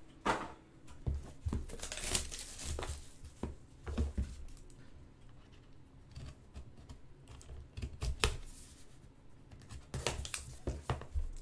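Plastic shrink wrap being cut and torn off a sealed trading-card hobby box: irregular crinkling and tearing with sharp clicks and taps as the box is handled.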